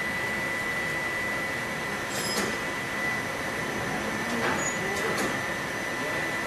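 Steady machine-shop noise with a constant high-pitched whine, broken by a few light metallic clinks about two seconds in and again around five seconds in.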